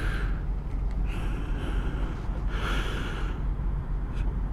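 A person breathing close to the microphone: soft breaths about every second and a half, over a steady low rumble.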